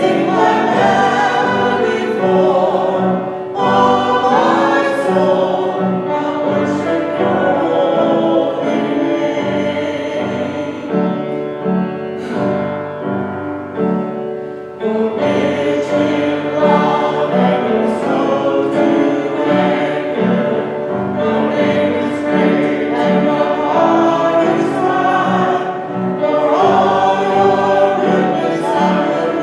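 A group of voices singing a contemporary worship song together, in a steady flowing melody with a brief pause between phrases about fifteen seconds in.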